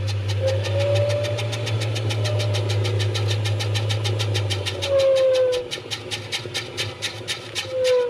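Washing machine running, with a steady low motor hum and rapid, even ticking at about five a second. The hum drops away about five seconds in.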